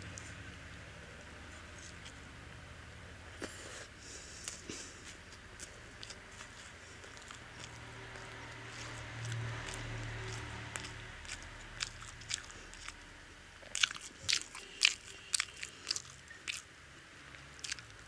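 Close-up sounds of a person biting and chewing egg-battered fried toast soaked in curry, wet mouth sounds with crisp crunches of the toasted crust. A quick run of loud crunches comes near the end.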